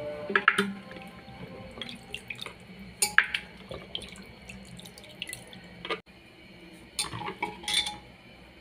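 Water splashing and sloshing in a plastic bucket as a hand rubs and washes raw meat pieces, with a few louder splashes, about three, among quieter swishing.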